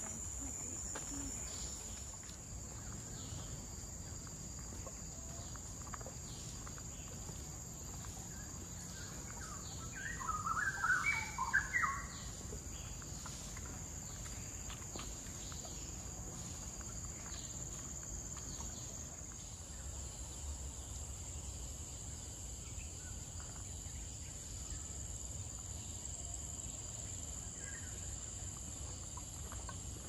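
Tropical forest ambience: a steady high-pitched insect drone, with a short burst of bird chirps about ten seconds in.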